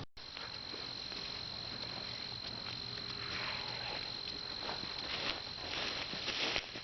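Insects shrilling in one steady, unbroken high tone, with short spells of soft rustling noise around the middle and near the end.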